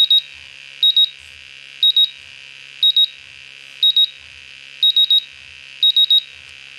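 RAE Systems MultiRAE Pro gas monitor sounding its alarm: short high-pitched beeps in quick groups of two or three, about one group a second. It is alarming on a high VOC reading from gasoline vapors.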